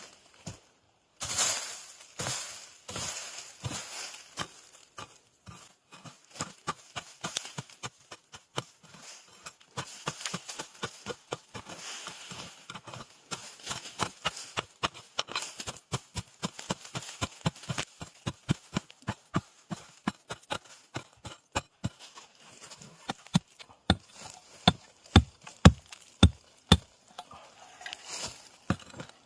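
A digging hoe chopping repeatedly into soil and roots to unearth a winter bamboo shoot, about two to three strikes a second. The blows are hardest near the end.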